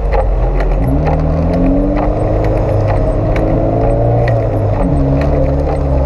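Off-road 4x4's engine heard from inside the cab, its revs rising about a second in and dropping again near the end, with scattered knocks and rattles from the vehicle.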